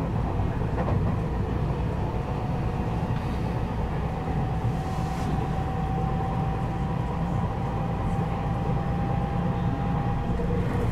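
Cabin noise inside a Seibu Laview limited express train running along the line: a steady low rumble, with a faint steady high whine from about two seconds in until near the end.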